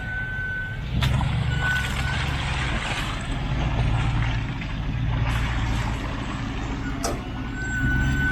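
Four-wheel-drive engine running under load, its revs stepping up about a second in and holding, with a thin high tone sounding on and off and sharp knocks about a second and seven seconds in.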